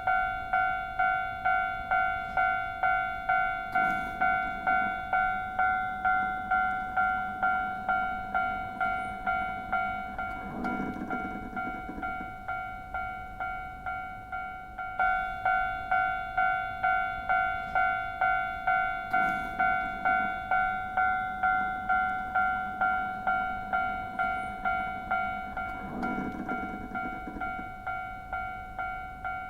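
Japanese railway level-crossing warning bell ringing 'kan-kan' in an even rhythm, about one and a half rings a second, each ring fading before the next. Its tone changes slightly about halfway through.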